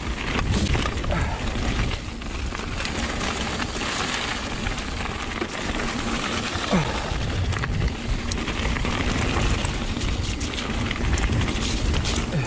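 Wind buffeting the microphone over the crunch and rattle of mountain bike tyres rolling down a loose gravel trail, with many small clicks and knocks from the bike.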